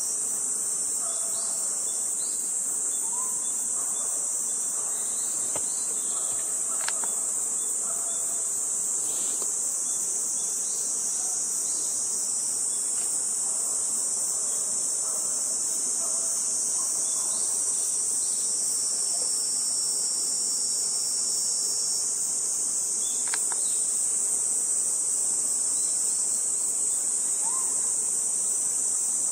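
Chorus of summer insects: a steady, high-pitched shrill drone that holds without a break.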